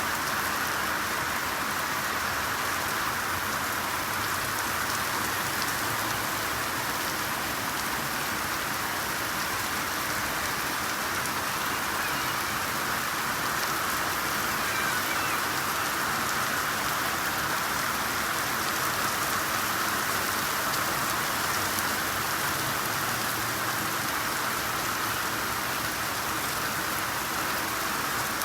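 Steady rainfall, an even hiss of raindrops hitting surfaces with no change in intensity.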